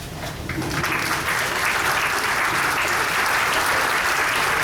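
Audience applauding, swelling over the first second into steady clapping.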